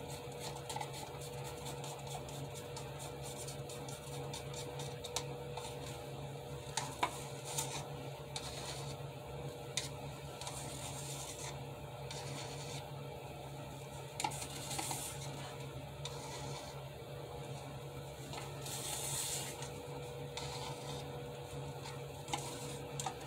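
Faint steady low hum, with light clicks and a few soft rustles of plastic cups being handled as acrylic paint is poured from one cup into another.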